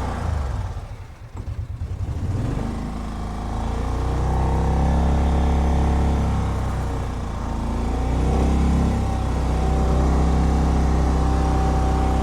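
Kawasaki Mule utility vehicle's engine running and revving up and down as it is driven in circles, easing off briefly about a second in.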